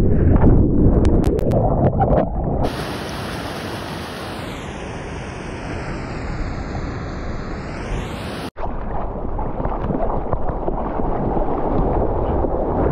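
Whitewater churning and wind buffeting a surfboard-mounted action camera in a wipeout, with a few sharp splashes in the first two seconds. The sound then changes abruptly to an even hiss of breaking surf and wind, and about eight seconds in it cuts out for an instant and returns as water rushing past the board with wind on the microphone.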